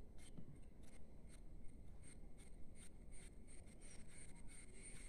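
Faint rubbing and soft irregular ticks of hands squeezing and rolling bread-and-milk gulab jamun dough into a ball in a plastic bowl.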